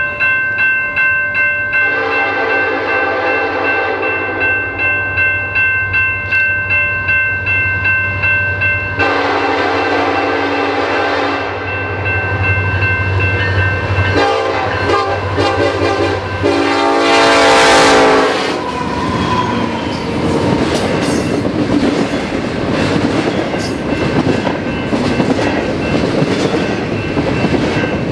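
Nathan K5LLA five-chime locomotive air horn sounding three long blasts, the chord dropping in pitch as the locomotive passes about 17 seconds in. The train's cars then rumble and clack by over the rail joints.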